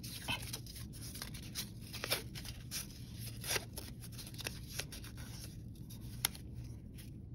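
A strip of colored paper rustling and crinkling as it is rolled tightly around a pencil, with scattered small clicks and taps.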